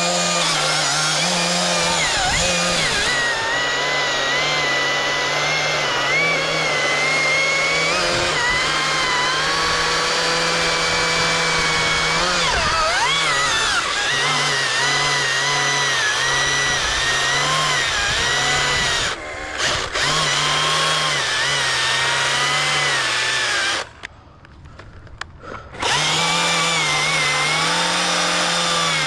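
Chainsaw motor running, its pitch stepping up and down as it works. It drops out briefly about two-thirds of the way through, then stops for about two seconds and starts up again near the end.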